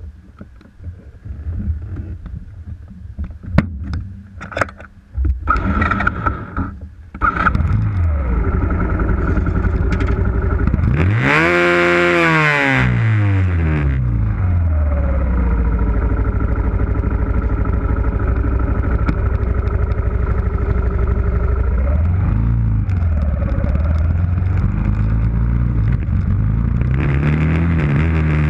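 Knocks and handling noise, then a motorcycle engine starts about seven seconds in and runs close by. It is revved up and back down once, then idles steadily, and revs again near the end as the bike moves off.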